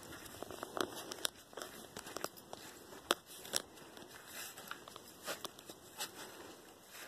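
Footsteps on dry, gravelly dirt: irregular crunches and crackling clicks, roughly one every half second to a second.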